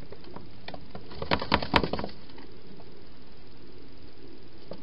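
Hedgehog crunching dry food: a quick run of sharp, crackling crunches about a second in, lasting about a second.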